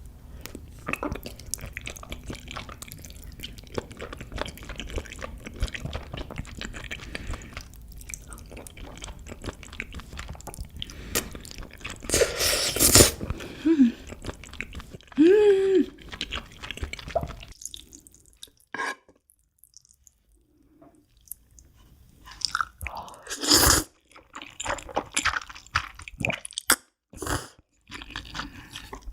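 Close-miked chewing of a mouthful of noodles, wet clicks and smacks, with a few louder bites and a quiet pause about two-thirds of the way through.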